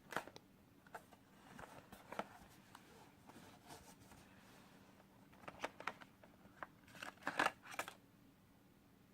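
Hands handling a phone box and its packaging: scattered clicks, taps and short rustles, busiest and loudest from about five to eight seconds in.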